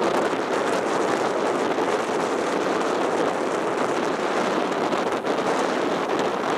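Rough sea surging and breaking over low rocks, an unbroken rush of surf with no single crash standing out, mixed with wind on the microphone.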